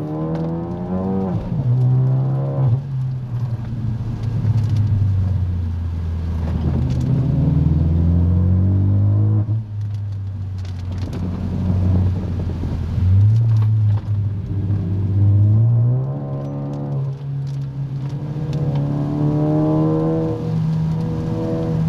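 Car engine heard from inside the cabin, its pitch climbing and dropping several times as the driver accelerates, shifts and eases off, over steady tyre and road noise on a wet road.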